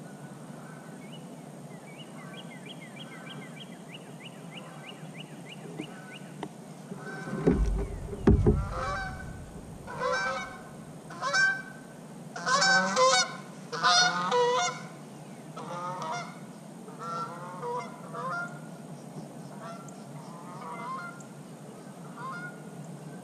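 Geese honking: a run of repeated calls that grows loud about halfway through and then tapers off. Two heavy low thumps come just as the honking starts.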